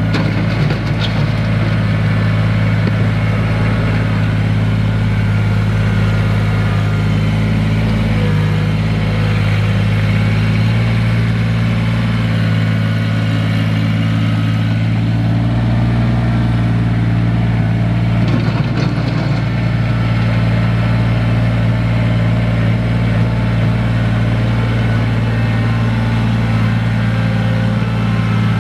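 Kubota BX23S compact tractor's diesel engine running at a steady throttle as its front loader pushes dirt back into a trench, with a brief scraping of soil and stones about two-thirds of the way through.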